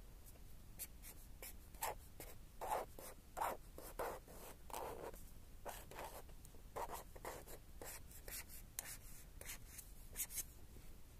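Black felt-tip marker drawn across paper in a quick run of short scratchy strokes, two or three a second, starting about a second in and stopping shortly before the end.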